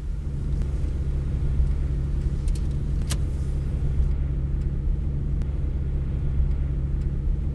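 Car cabin while driving at highway speed: a steady low rumble of engine and road noise, with a sharp click about three seconds in.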